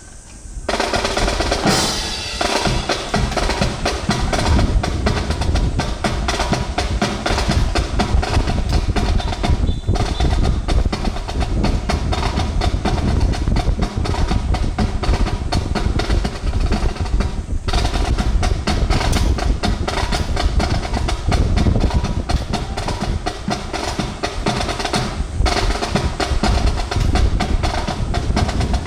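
Marching snare drums playing a fast, dense cadence with rolls. The drumming starts about half a second in and breaks off briefly a few times.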